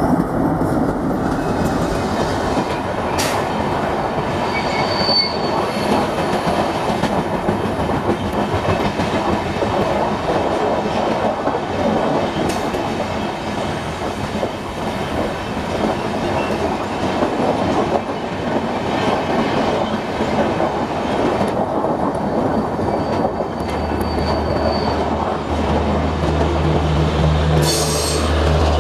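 Passenger coaches of a diesel-hauled express train rolling past: a steady, loud rush of wheels on rail, with clickety-clack and a few sharp clanks. About three quarters of the way through, a steady low hum joins in as the power car with its diesel generators draws near.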